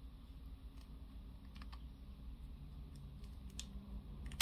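Plastic pieces of a Bandai Ultimagear Millennium Puzzle being handled and fitted together by hand: a few faint, scattered clicks and taps, the sharpest near the end, over a low steady hum.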